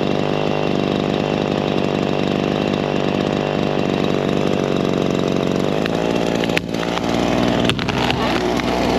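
Gas chainsaw running steadily at cutting speed through a fallen tree, its pitch changing about six seconds in.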